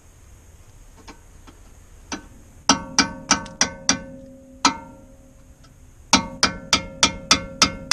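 Hammer striking a steel punch to drive the retaining plate out of a 1987 Chevy P30 disc brake caliper mount: sharp metallic strikes that ring after each blow. A run of five at about three a second a few seconds in, a single strike, then a steady run of about seven near the end.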